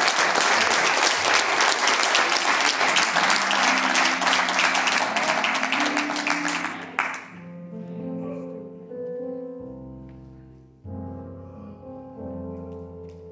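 Congregation applauding, with keyboard chords playing underneath. The applause stops suddenly about seven seconds in, leaving slow keyboard chords, each one struck and then fading.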